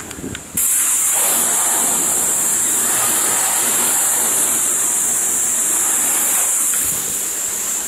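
Garden hose spray wand at full force, its jet of water hissing and splashing onto wet pavement and up under a car's sill to rinse road salt off the undercarriage. It starts suddenly about half a second in, runs steadily and eases slightly near the end.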